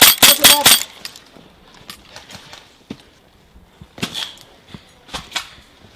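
Airsoft guns firing: a quick string of sharp shots, about five a second, in the first second, then sparser, fainter shots, with a few louder ones around four and five seconds in.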